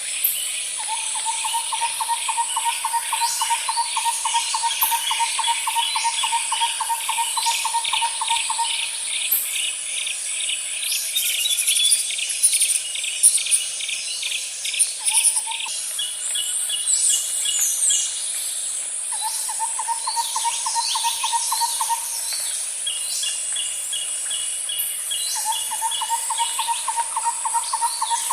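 Night-time nature ambience of insects and birds. A steady high insect buzz runs under rapid pulsed insect chirping. A long, low rattling trill comes several times: a long run at the start, a short one mid-way, and more near the end. Brief bird chirps and whistles cluster in the middle.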